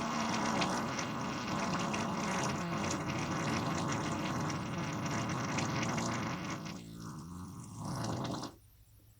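One long, low, buzzing fart lasting about nine seconds. It weakens for a moment, pushes again and stops shortly before the end.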